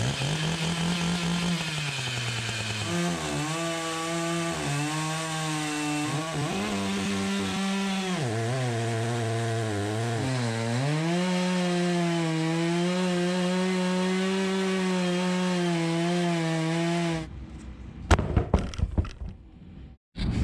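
Chainsaw cutting into wood, its engine pitch dipping and rising again several times as it is loaded in the cut. It cuts off about 17 seconds in, followed by a few knocks and clatters.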